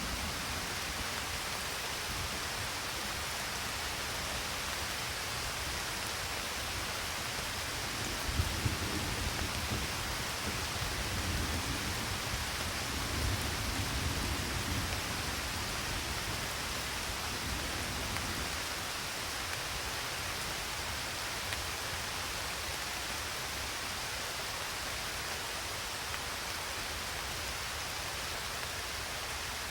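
Steady rain hissing, with a low rumble of distant thunder rolling through the middle stretch.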